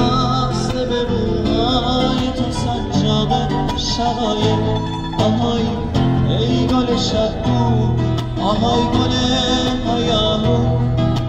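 Live street music: acoustic guitar and santur (Persian hammered dulcimer) playing a song together, with a man singing into a microphone.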